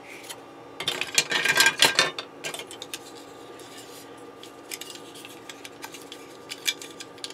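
Hard plastic model-kit parts clicking and rattling against each other as they are handled and fitted together, busiest about one to two seconds in, then a few scattered light clicks.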